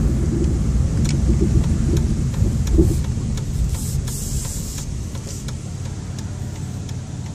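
Car cabin sound while driving slowly: a low engine and tyre rumble that grows steadily quieter as the car slows for a stop sign and turns, with a short hiss about four seconds in.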